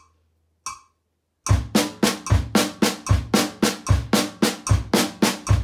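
A metronome click at 75 beats per minute sounds twice. About a second and a half in, a drum kit comes in on the click: an even run of snare-drum triplets with the bass drum landing on every click.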